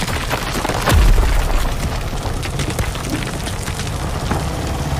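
Earthquake sound effects: a deep boom about a second in, over a steady low rumble, with scattered sharp cracks and knocks.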